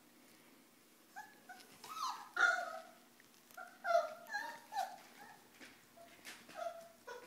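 Four-week-old Pyrenean Mastiff puppies yelping and whining as they play, a string of short high-pitched calls, loudest about two and a half and four seconds in.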